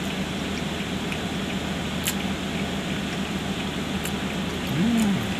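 Steady low hum of a car idling with its air conditioning running, heard inside the cabin, with a few faint clicks from chewing. Near the end comes a short hummed "mmm" from the eater, rising then falling in pitch.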